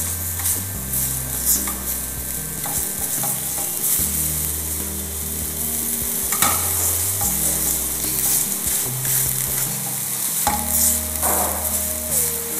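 Sugar with orange and lemon zest sizzling in a stainless steel sauté pan as it caramelizes on the gas flame, with a metal fork stirring and scraping across the pan bottom, a few scrapes standing out.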